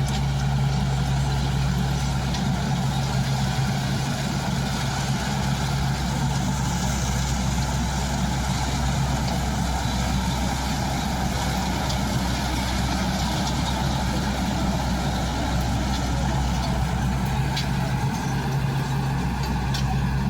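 Rice combine harvester's diesel engine running steadily, with a constant low hum and mechanical noise; the lowest tone weakens through the middle and comes back near the end.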